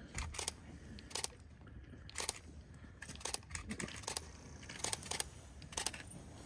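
Dry fallen leaves crunching and crackling under a giant panda's paws as she walks: about ten sharp, irregular crackles spread across the few seconds.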